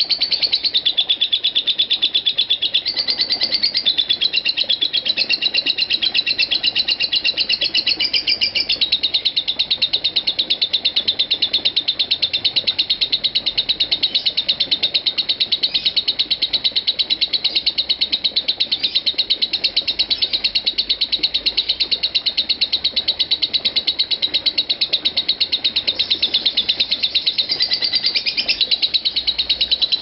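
Lovebird's 'ngekek' song: one unbroken, rapid, high-pitched chattering trill that shifts pitch a few times but never stops.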